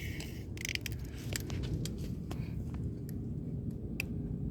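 Scattered light clicks and taps of hands handling the mower and a tool while checking the blade shaft, over a steady low background rumble.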